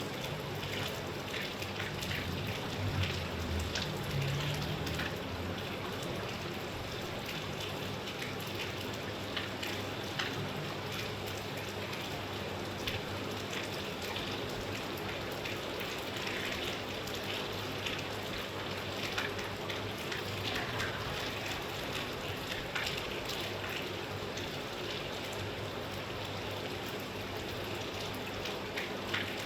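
Steady rainfall: a constant hiss of rain with many small, separate drop impacts through it.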